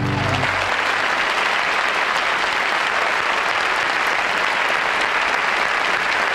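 Studio audience applauding steadily, with the band's last held chord dying out in the first second.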